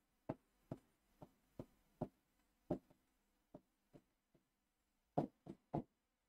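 Marker pen writing on a whiteboard: a string of short, faint taps as the tip strikes the board stroke by stroke, with a quicker run of three about five seconds in.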